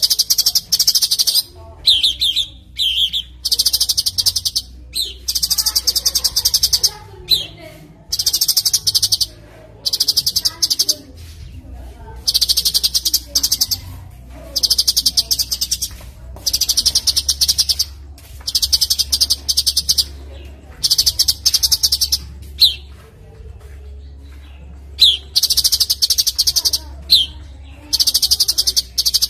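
A songbird singing in a steady series of very high, rapid buzzy trills, each about a second long with short gaps, mixed with brief down-slurred chip notes. A low steady hum lies underneath.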